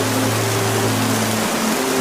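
Steady, dense rainfall hiss, with a faint low hum of steady tones underneath that shifts about one and a half seconds in.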